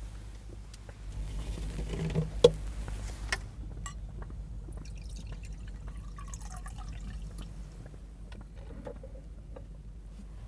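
A drink being poured into a glass, with a sharp clink about two and a half seconds in and a lighter one just after, over a steady low hum.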